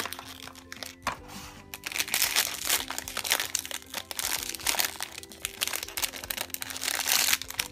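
Foil blind-bag wrapper being torn open and crumpled by hand: loud, irregular crinkling and crackling, heaviest from about two seconds in, with light background music under it.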